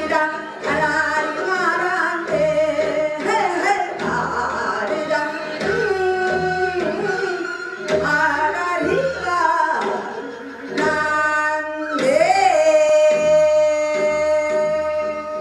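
A woman singing a Korean folk song in a pansori-trained voice over instrumental accompaniment with a steady low beat. Near the end she finishes on a long held note that rises briefly and then holds steady.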